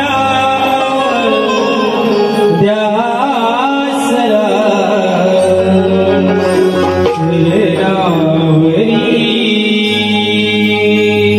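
Male voice singing a Shakti-Tura stavan, a devotional invocation song, with wavering melodic ornaments over steady instrumental accompaniment.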